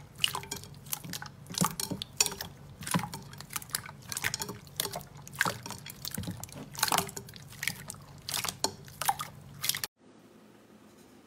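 Clear slime squeezed and pressed by hand, giving wet, sticky squelches and irregular crackling pops as air pockets burst. The sound stops abruptly just before ten seconds in, leaving a faint hiss.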